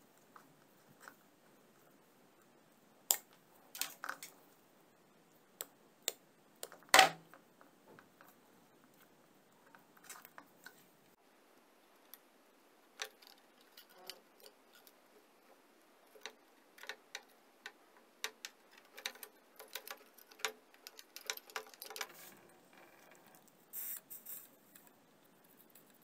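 Small hand-work noises on a wooden bench: scattered sharp clicks, snips and taps from wire cutters, wires and metal shower-head parts being handled, the loudest click about seven seconds in and a quick run of them later on. A short hiss near the end as a soldering iron touches the wire joint.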